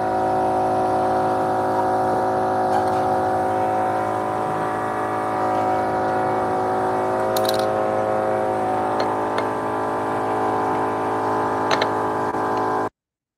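Metal lathe running, its motor and gear train giving a steady hum made of several tones, with a few light clicks. The sound cuts off suddenly near the end.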